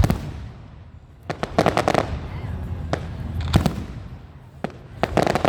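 Aerial fireworks going off: a sharp bang at the start, then repeated clusters of rapid crackling bursts about every two seconds.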